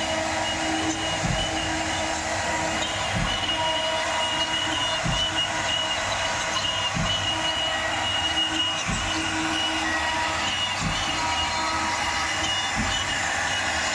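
Wood CNC router with a 3.5 kW HQD spindle running: a steady whine and hiss, with a low thump about every two seconds.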